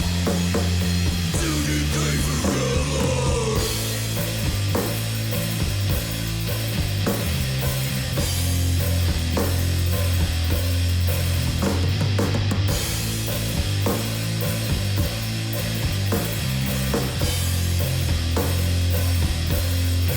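Stoner rock band playing a heavy, repeating low riff over a steady drum kit beat, with a lead line sliding in pitch during the first few seconds.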